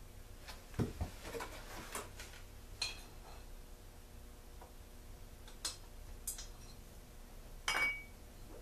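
Metal engine parts of a Stihl backpack blower, its cylinder and small valve parts, clinking and knocking against each other and the bench as they are handled, in several separate taps. The loudest pair comes about a second in, and a sharper knock with a short metallic ring comes near the end.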